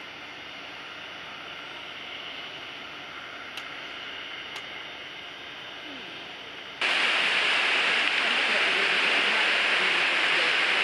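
Faint steady open-air background with two tiny clicks, then, from a cut about seven seconds in, the loud steady rush of the waterfall inside a rainforest greenhouse dome.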